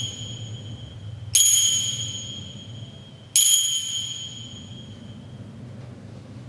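Altar bells rung at the elevation of the consecrated host. There are two rings about two seconds apart, each a bright, high jingle that fades slowly, after the dying tail of a ring struck just before.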